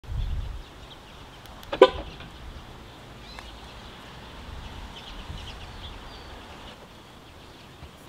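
A low thump at the very start, then a single short horn-like beep about two seconds in; otherwise only faint background.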